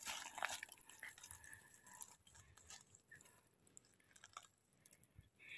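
Faint crackling and rustling of dry fallen leaves as a hand works through the leaf litter around a porcini mushroom, busiest in the first two seconds and then thinning to scattered crackles.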